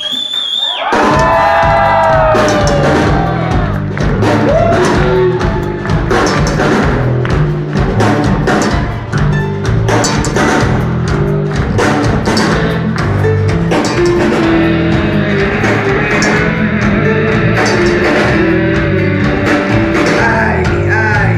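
Uyghur zurnay, a double-reed shawm, playing an ornamented melody with bending, sliding notes over continuous rhythmic drumming. It starts on a high held note.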